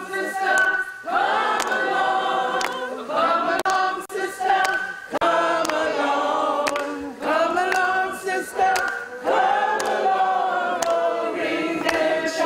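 A group of people singing together unaccompanied. The voices hold long notes in phrases of about two seconds, with a few sharp clicks scattered through.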